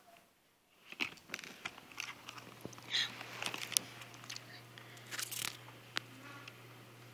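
Close handling noise of a plastic camcorder being turned over and fingered: irregular clicks, taps and crackles of plastic. A faint low steady hum starts about two seconds in.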